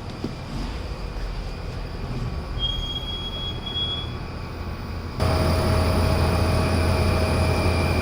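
LG LA100EC window-type inverter aircon running with a steady hum and a shrill, cricket-like squeal, which grows suddenly louder about five seconds in. The squeal comes from the blower fan's shaft, which turns out to be rusted.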